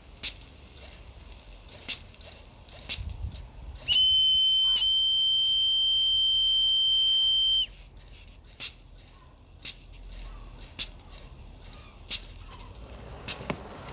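A single loud, steady high-pitched whistle tone, held for about three and a half seconds from around four seconds in and cutting off sharply. Scattered light clicks and ticks fall before and after it, and a faint hiss builds near the end.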